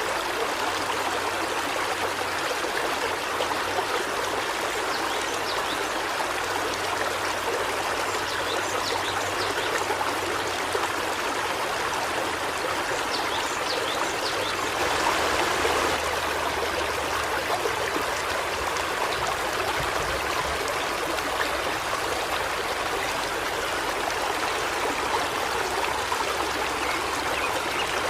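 River water flowing steadily over rocks, a continuous rushing and trickling that swells briefly about halfway through.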